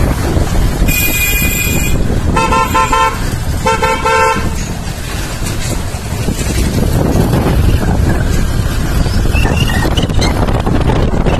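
Vehicle horns honking over the steady engine rumble and wind noise of a motorcycle ride. A high-pitched honk comes about a second in, followed by two lower, stuttering honks.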